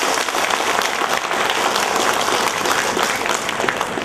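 Audience applauding, a dense steady clapping from many hands, easing off near the end.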